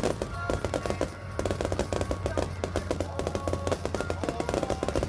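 Fireworks going off in rapid succession: dense, continuous bangs and crackle, with music playing along.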